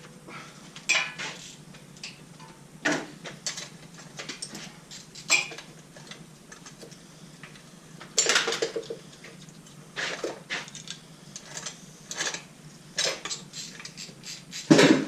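Hand tools and loose metal engine parts clinking and clanking now and then during an engine teardown, with a longer clatter about halfway through and the loudest clank near the end.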